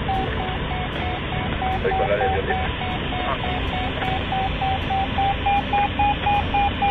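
Glider's audio variometer beeping, about three to four short beeps a second at a steady mid pitch that creeps up slightly later on: the climb tone, with the glider climbing on aerotow. Under it runs a steady rush of cockpit and airflow noise.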